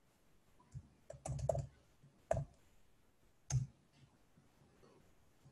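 Computer keyboard being typed on: a single keystroke about a second in, a quick run of several keys, then two more single strokes with pauses between.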